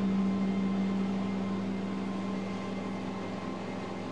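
Steady drone of a Flight Design ultralight's engine and propeller in cruise flight, heard inside the cockpit: one even, unchanging pitch over a rushing background noise.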